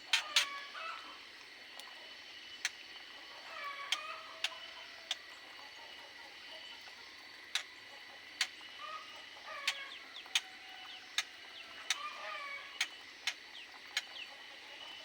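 Aviary birds giving short, stepped calls, with sharp clicks or taps scattered irregularly throughout, a dozen or more in all.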